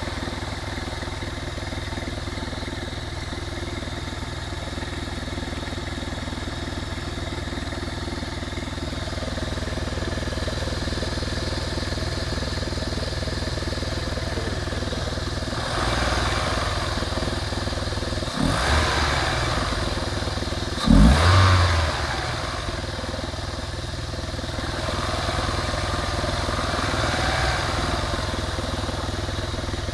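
Opel Vectra B's 2.0 16-valve X20XEV four-cylinder petrol engine running with its air filter removed, with a strange noise from inside the engine that does not follow engine speed; the owner thinks it could be the connecting-rod or crankshaft bearings, the camshafts or the oil pump. A little past halfway the engine is revved up briefly twice.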